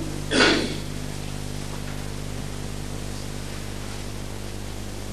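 Steady hiss and low hum of the recording, with one short noisy burst about half a second in.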